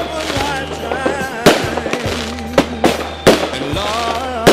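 Fireworks going off: about five sharp bangs, two of them close together in the middle, with wavering whistles, over background music.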